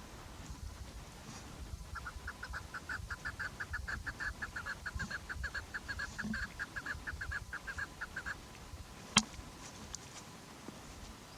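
Chukar partridge calling: a rapid, even series of short clucking notes, about six a second, lasting some six seconds. A single sharp click follows about a second after the calling stops.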